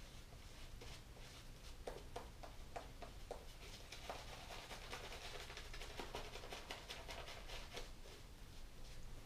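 A shaving brush working lather over a stubbled face, re-lathering before the second pass of a straight-razor shave. It makes a faint, rapid run of soft bristly swishes that gets busier about halfway through.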